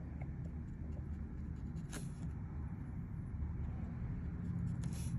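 Steady low background rumble with a few faint light clicks, the sharpest about two seconds in.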